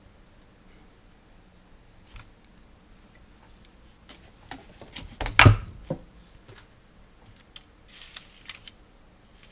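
Tools and parts being handled on a paper-covered workbench: scattered light clicks and knocks, a louder clatter of several sharp knocks about five and a half seconds in, and a brief paper crinkle near the end.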